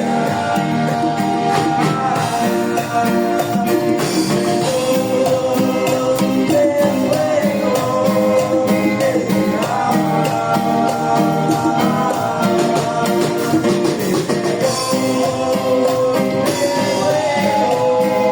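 Live band music with a steady dance beat: a sustained melody line carried over bass and percussion, with no words picked out.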